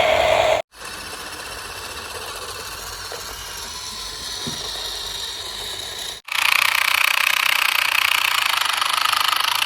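Small electric motors whirring and buzzing, as of remote-control toy vehicles, in three clips joined by sudden cuts: loud, then quieter for several seconds, then loud again.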